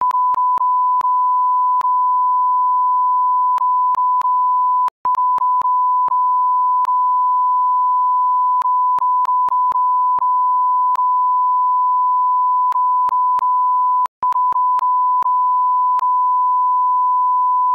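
A censor bleep: one steady, loud, high beep tone held almost without a break, blotting out the dialogue. It drops out briefly twice, about five seconds in and again near fourteen seconds. Many small clicks mark the splices between bleeps.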